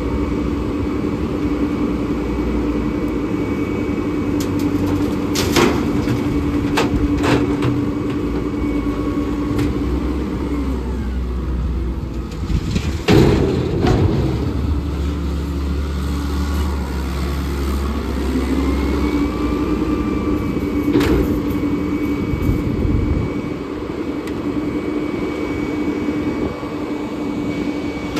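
Rear-loader garbage truck running with its hydraulics working the container tipper as a metal container is lifted and emptied into the hopper. The steady hum of the raised engine speed drops away about ten seconds in and climbs back up near twenty seconds. Metal clanks are heard, with a loud bang about thirteen seconds in as the container is tipped up.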